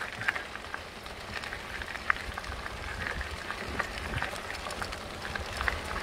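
Fat tyres of a Fat Tad recumbent trike rolling over a sandy dirt trail, a steady crunch and crackle of grit under the wheels with a low rumble underneath.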